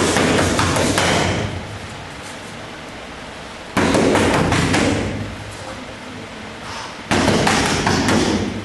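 Three quick flurries of gloved punches hitting focus mitts: the first at the start, the next about four seconds in and the last about seven seconds in. Each flurry starts suddenly and lasts about a second and a half.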